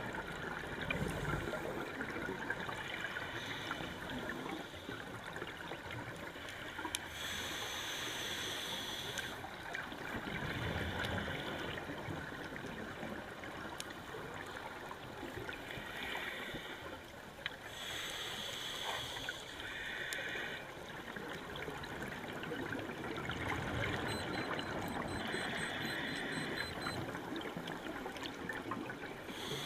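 Scuba diver breathing through a regulator underwater: inhalations drawn with a high hiss lasting a second or two, every few seconds, alternating with gurgling, bubbling exhalations.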